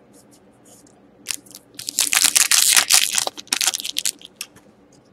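A foil trading-card pack wrapper being torn open and crinkled, in a dense burst lasting about a second and a half starting about two seconds in. A few small crackles follow as the cards are pulled out.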